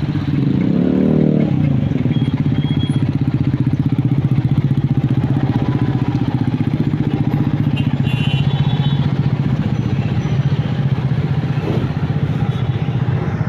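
Motorcycle engine running close to the microphone, its pitch rising briefly about a second in, then holding steady at a low, even pitch.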